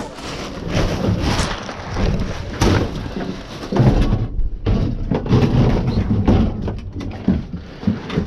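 Rustling and a run of knocks and thumps as loose junk is handled, bagged and thrown onto a load.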